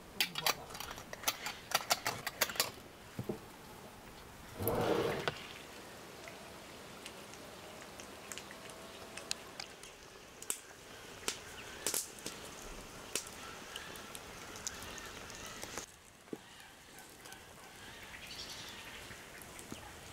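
A quick run of light clicks and knocks, then a single short animal call about five seconds in, followed by scattered faint clicks.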